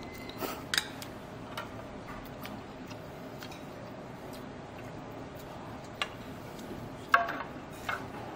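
Scattered clinks of a metal ladle and tongs against stainless-steel noodle bowls, the loudest a sharp clink about seven seconds in, with a quiet stretch in the middle.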